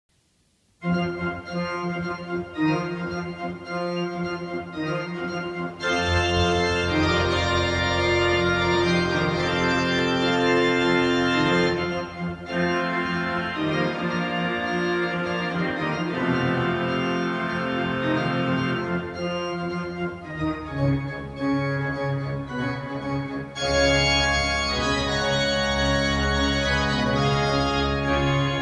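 Large pipe organ playing a toccata in dense sustained chords, starting under a second in. Deep pedal bass notes come in about six seconds in, and the sound grows fuller and brighter about 23 seconds in.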